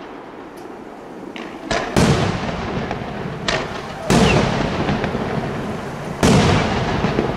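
Aerial firework shells bursting: three loud bangs about two seconds apart, with a few smaller pops between them. Each bang is followed by a rolling echo.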